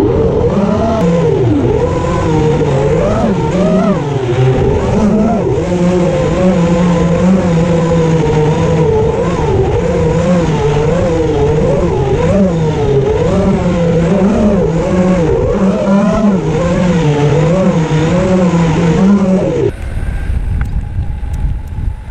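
Whine of small electric motors: a loud, buzzing pitched tone with overtones whose pitch wavers up and down all the time. Near the end it cuts to low wind rumble on the microphone, with a faint thin whine.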